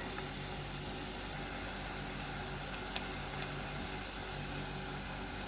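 Steady low hum and faint hiss from a stove-top pan of vegetables and spices frying gently in oil, with one light tick about three seconds in.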